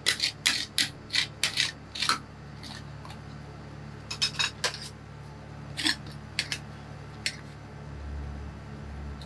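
Metal spatula scraping and tapping against a steel ice-cream cold plate as it scores the frozen ice cream sheet: a quick run of sharp strokes in the first two seconds, then a few scattered ones. A low steady hum runs underneath.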